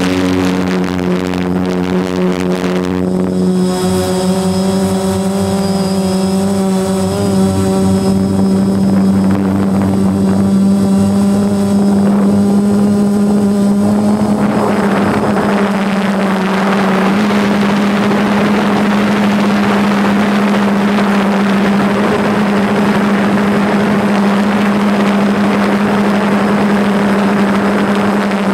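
DJI Phantom quadcopter's motors and propellers humming steadily at one pitch, heard from on board the drone. About halfway through, a rushing wind noise on the microphone joins the hum and stays.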